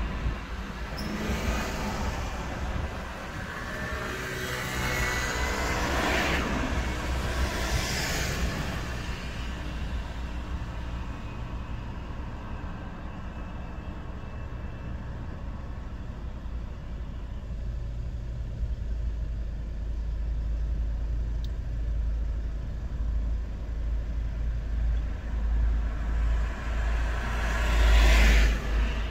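Road traffic passing a stopped car: vehicles swish by about a second in, around six and eight seconds, and loudest near the end, over a steady low engine rumble.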